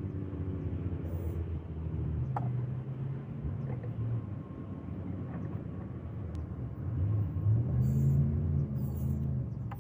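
Several short hisses of an aerosol can of fogging oil sprayed into an outboard's spark-plug holes, over a low engine rumble that is loudest near the end.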